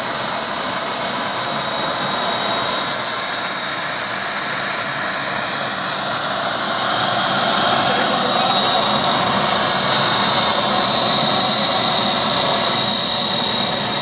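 Homemade turbocharger jet engine running steadily: a loud high-pitched turbine whine over the rushing roar of combustion and exhaust, the whine sagging slightly in pitch midway and coming back up near the end.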